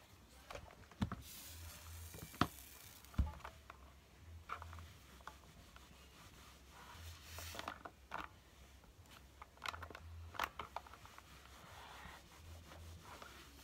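Handling noise: things being rubbed and moved about, with scattered light knocks and clicks and a few short brushing sounds.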